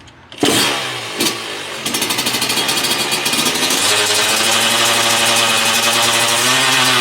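Yamaha two-stroke motorcycle engine that comes in suddenly about half a second in, then runs at high revs, its pitch rising and dipping as the throttle is worked.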